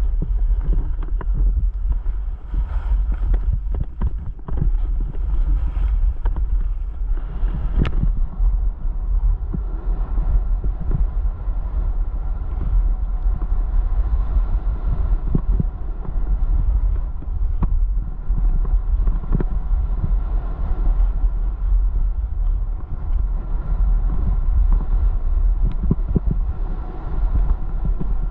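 Wind rushing over an action camera's microphone during a fast downhill ski run, a steady low rumble, with the skis scraping and chattering irregularly on groomed snow.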